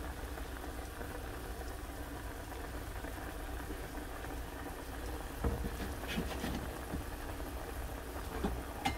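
Crab ramen broth at a rolling boil in a thin yellow aluminum pot, a steady bubbling patter. A couple of faint knocks come about halfway through.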